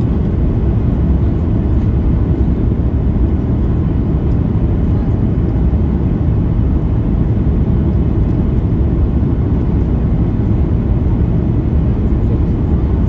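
Steady low rumble of a Boeing 737 MAX 8's CFM LEAP-1B engines and airflow heard inside the passenger cabin during final approach to landing.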